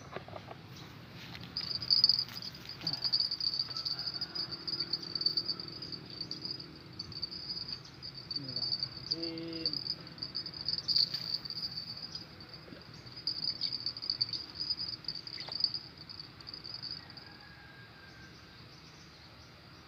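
Insects trilling steadily at a high pitch, starting about two seconds in and fading out near the end, with scattered rustles and light knocks around it.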